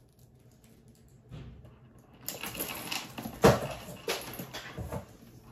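Handbag strap and its metal hardware being handled and adjusted: a run of small clicks, clinks and rustles starting about two seconds in, with one sharp knock near the middle.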